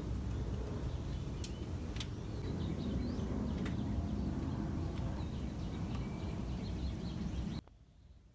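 Small birds chirping repeatedly over a low, steady rumble, with a few sharp clicks; it all cuts off abruptly near the end.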